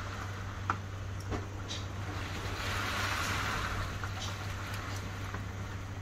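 Steady rain falling during a typhoon, with a few sharp ticks in the first two seconds. A rushing swell rises about two and a half seconds in and fades again.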